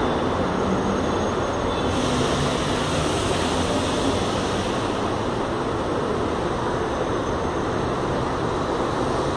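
CPTM electric commuter train running away down the track, a steady rumble of wheels on rail that slowly fades as it recedes.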